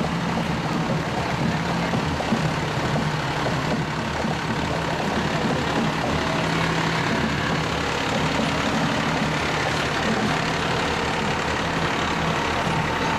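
Fire engine's diesel engine running steadily at low speed as the pumper rolls slowly past close by, a constant low hum with no change in loudness.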